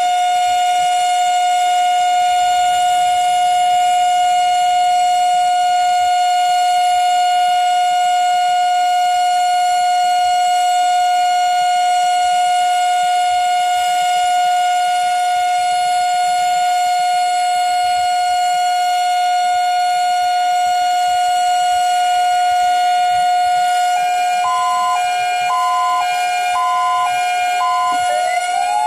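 Fire station siren sounding one long, steady, unwavering tone: the commemorative siren signal. In the last few seconds a fire vehicle's siren joins it, alternating between two pitches, and then rising wails begin at the very end.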